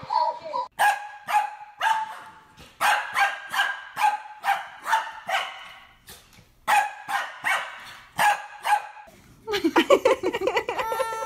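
Dog barking repeatedly in short, sharp barks, about two to three a second, with a brief pause partway through. Near the end the barking gives way to a different high, wavering cry.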